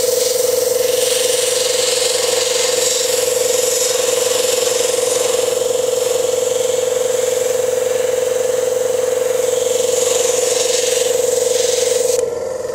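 Airbrush spraying paint: a steady hiss of air over the steady hum of the airbrush compressor, both cutting off about half a second before the end.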